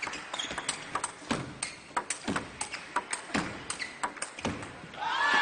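Table tennis rally: the celluloid ball clicks off bats and table in quick succession, with short shoe squeaks on the court floor between strokes. Near the end the sound jumps up with shouting as the point ends.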